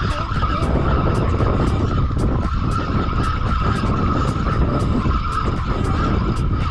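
Fishing reel being cranked steadily as a fish is brought up to the boat, giving a steady high-pitched whine that stops near the end. Wind on the microphone adds a low rumble throughout.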